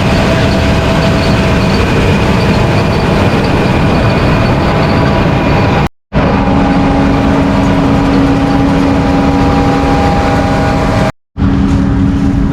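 Large vehicle engine running steadily while under way. The sound drops out abruptly twice, about six seconds in and again near the end, and after the first dropout a steady engine hum stands out.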